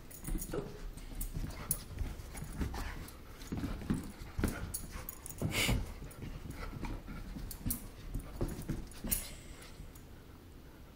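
A West Highland terrier and a larger dog play-fighting: short, irregular dog noises and scuffles, with several sharp clicks along the way.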